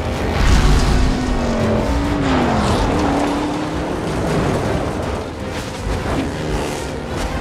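Film-soundtrack car chase: car engines revving hard, their pitch rising and falling, over a heavy low rumble that swells to a deep blast about half a second in.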